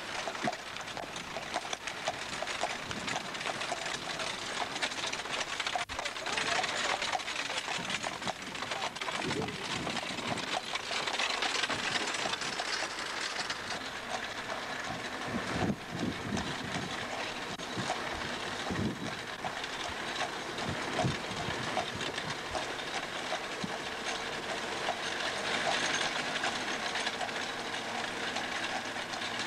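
Horse-drawn carriage on a paved road: hooves and iron-shod wheels clattering in many small clicks over a steady hiss.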